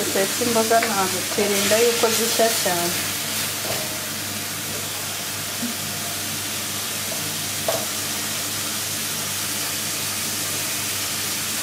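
Chopped leafy greens sizzling as they fry in a wok over a gas flame, stirred with a spatula, with a steady hiss. A voice is heard briefly at the start, and there is a single knock of the spatula partway through.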